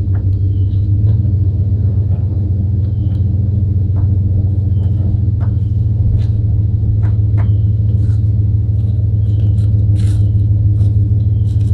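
An engine running steadily at a constant speed, a deep even drone, with light clicks and ticks scattered over it.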